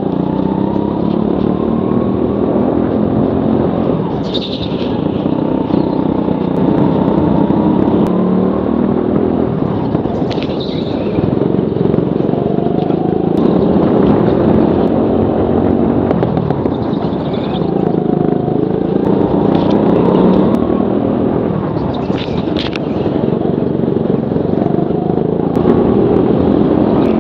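Go-kart engines running at racing speed, heard from on board the kart, their note rising and falling with the throttle. Several short high squeals come through at intervals.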